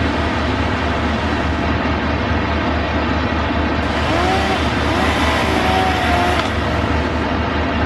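A tree-removal crew's heavy machinery engine running steadily, with a rhythmic low throb under a loud, even rushing noise. A faint wavering tone comes in briefly about four seconds in.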